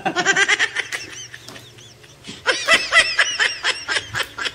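A man laughing in two bouts of quick, breathy pulses, the first right at the start and the second, louder one from about halfway through.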